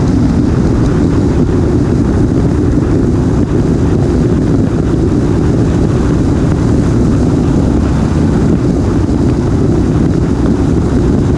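Wind buffeting the microphone of a camera on a motorcycle riding at steady road speed: a loud, unbroken low rumble mixed with the motorcycle's engine and tyre noise.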